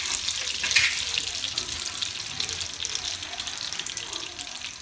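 Melted butter bubbling and sizzling in a wok, a steady crackling hiss of many tiny pops.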